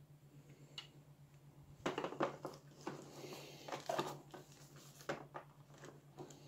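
Polythene wrap and a clear plastic packaging tray crinkling and rustling as model train cars are handled, starting about two seconds in, with a few light clicks before and after. A faint low hum runs underneath.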